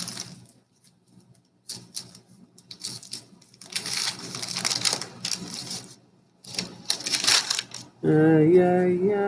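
Baseball cards being handled and a new pack opened: irregular bursts of papery rustling and crisp cardboard clicks. About a second before the end, a louder steady pitched sound starts, stepping up and down in pitch like humming.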